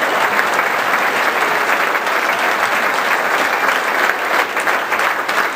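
Large audience applauding steadily: dense, sustained clapping from a hall full of people.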